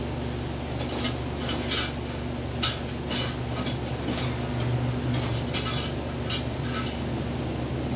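A string of short clinks and scrapes from small hard objects being handled, over a steady low hum.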